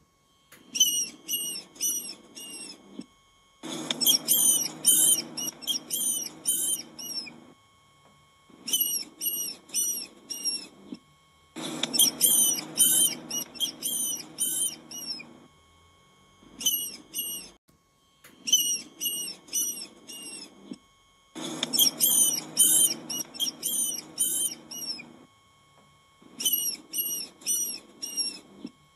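Rat or mouse squeaking: rapid rows of short, high-pitched squeaks over a low rustling noise. They come in bursts of a few seconds with short pauses between.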